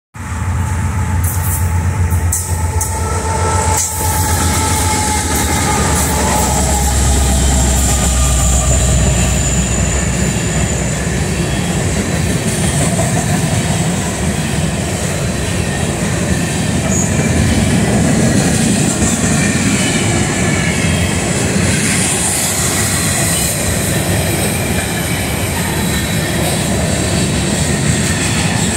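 Freight train passing close by: a GE AC4400CW diesel locomotive's heavy low engine rumble for about the first ten seconds, then the steady rolling noise of the grain hopper cars on steel wheels, with thin high wheel squeal.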